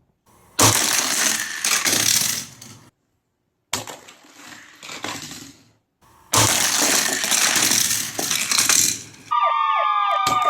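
Three loud bursts of crashing, clattering noise with gaps of quiet between them. Near the end an electronic jingle starts: a held tone with sweeping tones rising and falling over it.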